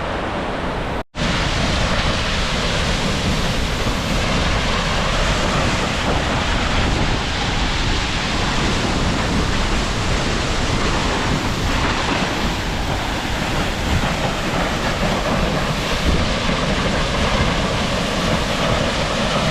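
Steady rush of a large waterfall crashing close by, with wind and mist buffeting the microphone. The sound cuts out for an instant about a second in.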